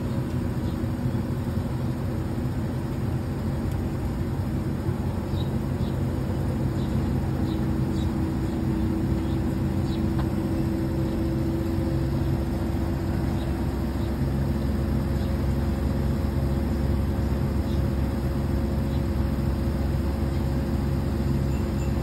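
Samsung DC inverter air conditioner's outdoor unit running: a steady hum from the compressor and fan, a steady tone over a low rumble. The system is short of R32 refrigerant, its suction pressure settled at only about 50, which the technician reads as a gas leak.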